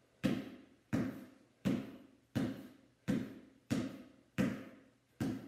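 Basketball dribbled on a bare concrete garage floor in slow crossovers from hand to hand: eight even bounces, a bit more than one a second, each with a short ring in the room.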